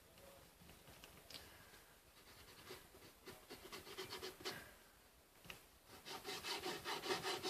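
Paint being dabbed and rubbed onto a cardboard box in quick, scratchy strokes, roughly six a second, sparse at first and getting faster and louder in the last couple of seconds.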